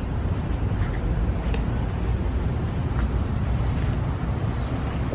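Steady low rumble of outdoor background noise. A faint, steady high-pitched whine comes in about two seconds in.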